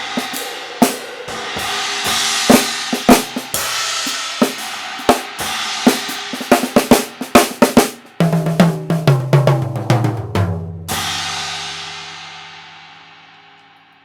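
Drum kit being played with a Byzance China cymbal whose crack has been cut out and its edges tapered, ringing among snare and cymbal strokes. Near the end a run of drum strokes steps down in pitch, then a last cymbal crash rings and slowly fades.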